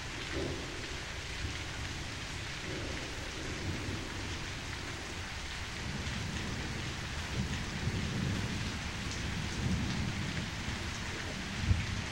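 Steady rain with low rumbles of thunder that swell past the middle, and a sharp thump near the end.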